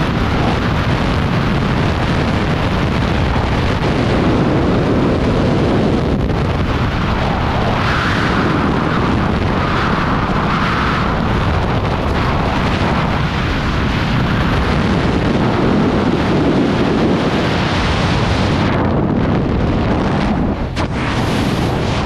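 Rushing freefall wind buffeting the camera microphone during a tandem skydive: a loud, steady roar of noise that dips briefly near the end.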